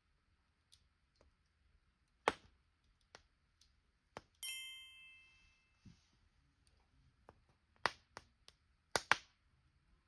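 Burning firewood crackling in a metal fire stand: scattered sharp pops at irregular intervals, the loudest a few near the end. About halfway through, a single bright chime rings and fades over about a second.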